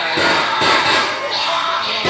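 Loud music for a Taiwanese glove-puppet (budaixi) stage show, with repeated percussion strikes through it.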